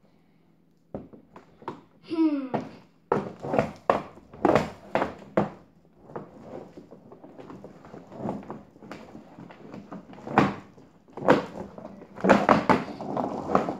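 Quad roller skates knocking and rolling on a hardwood floor: a string of uneven thunks, with a few heavier ones near the end.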